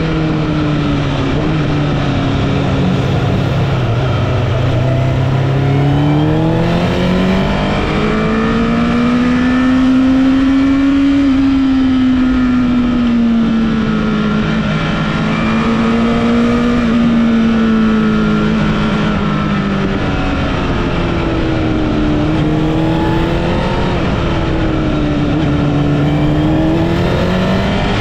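Honda CBR1000RR (SC77) inline-four engine under way on a winding road. Its note rises and falls over and over as the throttle is opened and rolled off through bends, over a steady rush of wind.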